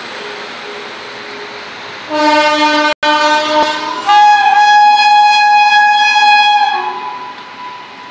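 Indian Railways electric locomotive horn sounding two long blasts over the steady rumble of a passing freight train: a lower note about two seconds in, then a higher note from about four seconds in that lasts nearly three seconds.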